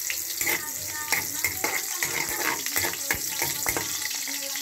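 Oil sizzling in a wok as slices of ginger fry, a steady hiss with frequent sharp crackling pops.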